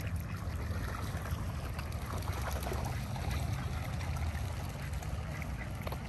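A flock of water birds calling over one another as they crowd in for bread thrown on the water, with many short calls and a steady low rumble underneath.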